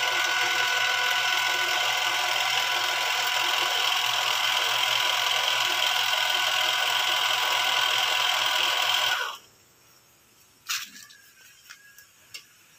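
Benchtop mini metal lathe running steadily with a motor whine, then stopping abruptly about nine seconds in. A few faint clicks follow.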